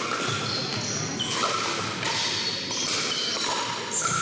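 Pickleball play on a hardwood gym floor: sharp pocks of paddles hitting the plastic ball, mixed with short high squeaks of sneakers on the wood at several different pitches.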